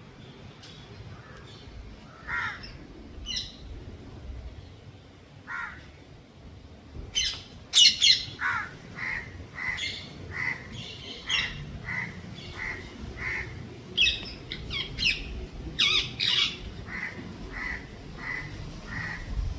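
Parrots squawking: harsh screeching calls, a few scattered at first, then a loud, dense run of squawks from about seven seconds in, over a steady string of shorter repeated calls.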